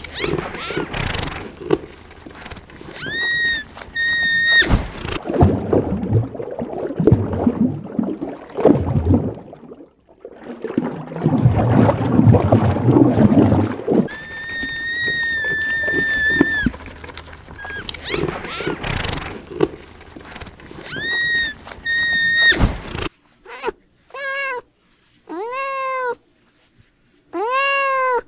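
A cat meowing several times in quick succession, each meow rising and then falling in pitch, starting after a sudden cut near the end. Before the cut, a rough rustling noise runs with short, high, steady-pitched cries now and then.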